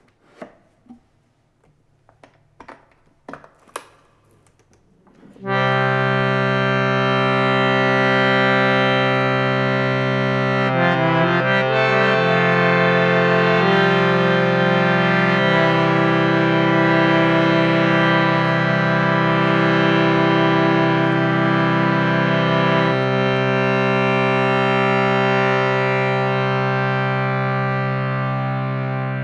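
Panipat Standard mini harmonium: after a few soft clicks and knocks, its reeds sound a loud, held chord that lasts to the end, with some of its notes changing a few times along the way.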